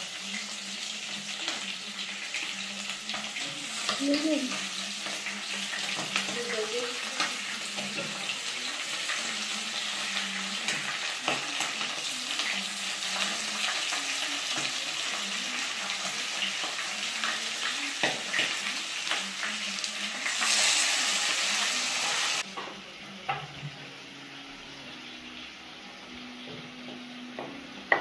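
Pre-boiled chicken pieces sizzling as they fry in hot oil with onions in a metal pot. The sizzle swells to its loudest about twenty seconds in, then drops suddenly to a much quieter hiss, with a few sharp knocks near the end.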